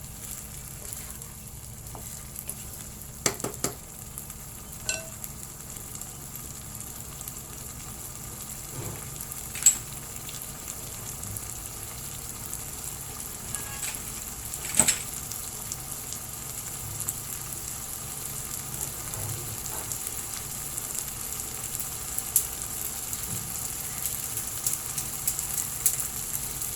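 Chicken and glutinous rice sizzling in a pot as they are stirred, with a few sharp clinks of the stirring utensil against the pot, the loudest about ten and fifteen seconds in.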